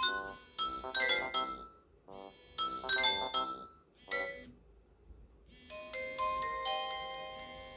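Nokia 3310 mobile phone ringtones: a quick phrase of bright electronic beeping notes plays twice, breaks off about four seconds in, and after a pause of about a second a different ringtone starts with longer held notes stepping downward.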